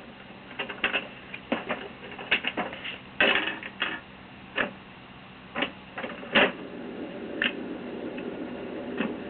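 Irregular plastic clicks and knocks from a Fisher-Price toy record player being handled as a 45 RPM record is put on and the tone arm set down. A steady low hum from the turntable comes up in the last third.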